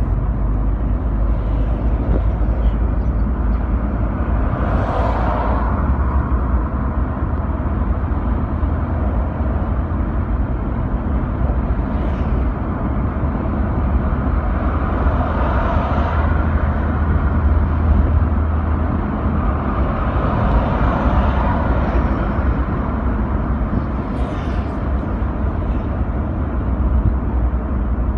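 Steady road and engine noise heard from inside a moving car, a low rumble that swells louder a few times.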